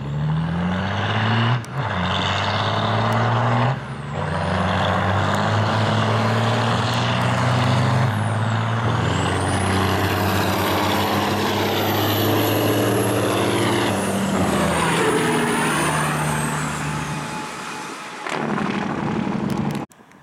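Diesel engines of drag-racing semi trucks at full throttle: the pitch climbs off the line and drops briefly twice in the first four seconds as the rigs shift, then holds a long steady full-load run with a high whistle rising and falling above it. The sound fades, swells once more and cuts off abruptly near the end.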